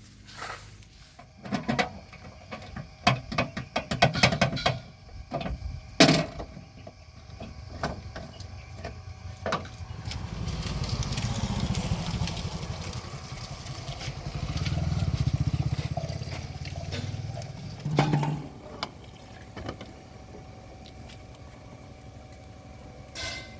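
Heavy diesel machinery at work. A run of sharp knocks and clanks comes in the first few seconds. Then a diesel engine labours in two long swells, and a single thud comes near the end.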